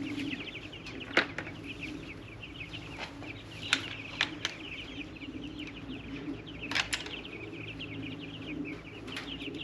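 A flock of meat chickens calling steadily, many high, rapid chirps overlapping, with a few sharp knocks or taps among them.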